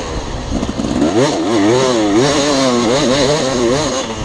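Dirt bike engine under way, its pitch rising and falling again and again as the throttle is worked, climbing steeply about a second in.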